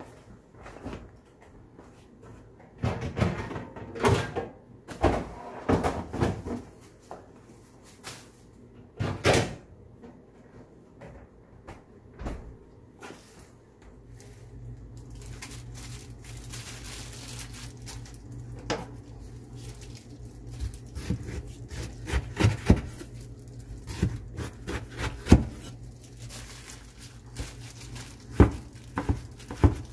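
Household handling sounds: a run of knocks and clatters, then a steady low hum joins about halfway through, with more clicks and knocks over it.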